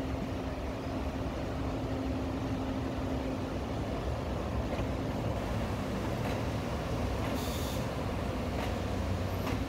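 Freight train hauled by an EF65 electric locomotive moving off slowly: a steady low rumble of the train rolling, with a faint even hum.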